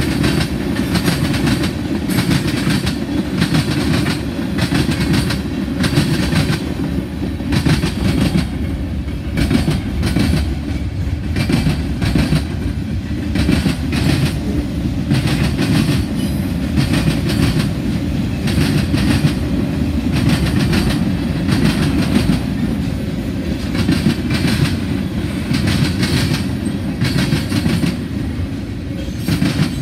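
Freight train cars rolling past close by: a steady rumble of steel wheels on rail, with repeated clacks as the wheels cross rail joints.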